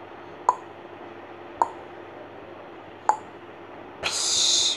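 Pencil on paper: three short sharp ticks spread over the first three seconds, then a loud scratchy hiss lasting under a second near the end as the graphite is rubbed hard across the sheet.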